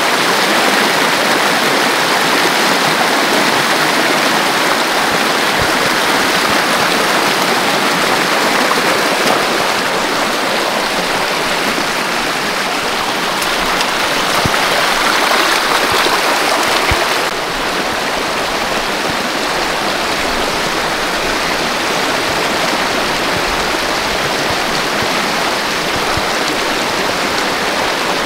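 Rain-swollen creek rushing over rocks, a steady wash of water noise. About two-thirds of the way through the sound drops a little and some low rumbling joins it.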